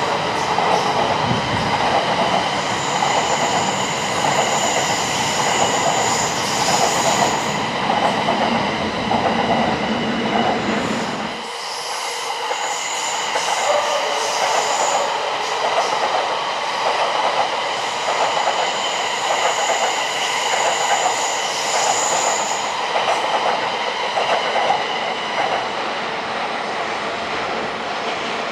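Electric train running past on steel rails, its wheels squealing in two long, high-pitched stretches. The deep rumble underneath drops away suddenly partway through.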